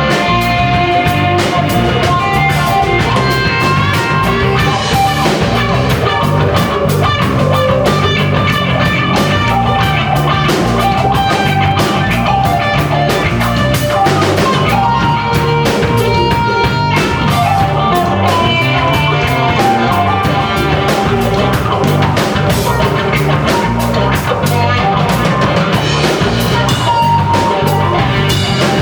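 Live rock band playing: electric guitars over bass and drum kit, the drums keeping a regular beat.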